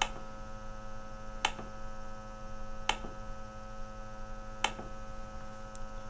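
Four short clicks about a second and a half apart from the push buttons of a SENSIT CO carbon monoxide analyzer being pressed, over a steady electrical hum.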